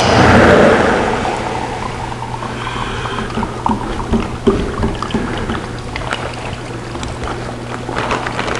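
Electro Arc Model 1025 Bolt Eater metal disintegrator sparking away through a 3/4-inch bolt under its coolant, shut off about a second in once it has broken through the bolt. A steady low hum and scattered light ticks remain, with the plastic splash bag rustling near the end.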